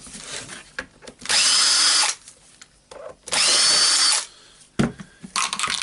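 A small cordless power tool's motor running in two short bursts about two seconds apart, each under a second long with a high whine, followed by a few light clicks near the end.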